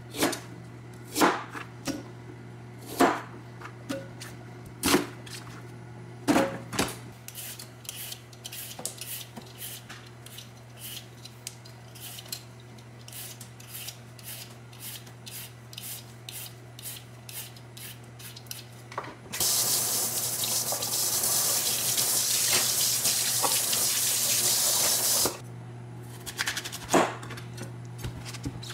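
Kitchen knife chopping carrot on a cutting board, single knocks every second or two, then a vegetable peeler scraping a daikon radish in quick repeated strokes. A tap runs hard for about six seconds, the loudest part, and one more knife knock follows near the end, all over a steady low hum.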